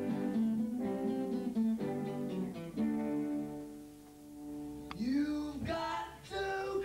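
Acoustic guitar picking single notes that ring and fade, thinning out about four seconds in, then singing comes in with a note that swoops up and back down near the end.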